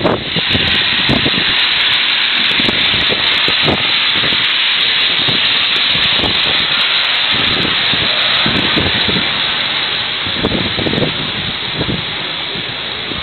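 Wind rushing across an ocean-going freighter's open deck at sea: a loud, steady hiss with irregular low buffeting on the microphone, easing slightly near the end.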